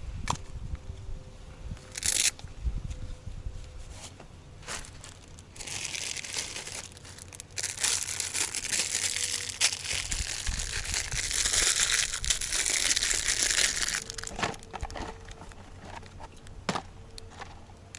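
Crinkly packaging being torn open and handled, with a dense run of crinkling through the middle and a few sharp crackles around it, as a new oil filter element is unwrapped.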